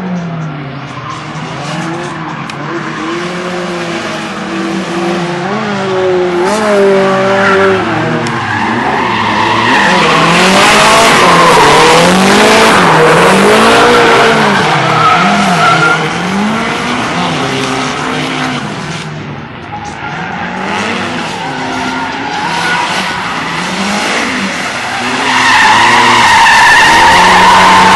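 Drift car's engine revving up and down again and again as it slides, with its tyres screeching. The screech is loudest through the middle and again near the end.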